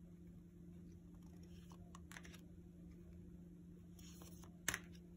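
Oracle cards handled and slid past one another: faint papery brushing twice, then a sharp click near the end, over a low steady hum.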